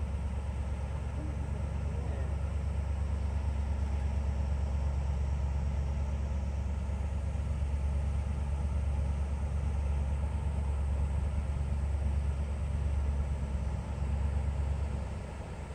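Low, steady drone of a ferry's diesel engine, dropping a little near the end.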